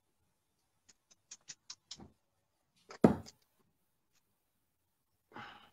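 Clicks and knocks at a dartboard during a darts game, as the darts are taken out of the board: a quick run of faint light clicks, then one loud short knock about three seconds in, and a softer one near the end.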